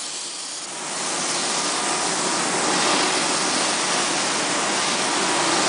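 Spray foam gun firing a test shot of two-part (A and B side) polyurethane foam: a loud, steady spray hiss that starts about a second in and stops after about five seconds.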